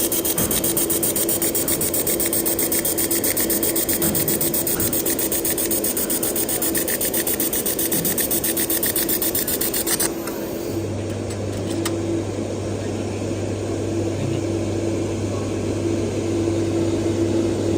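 2 kW laser welding machine running: a rapid, even pulsing buzz over a steady tone for about the first ten seconds, then the pulsing stops, leaving a steady low hum.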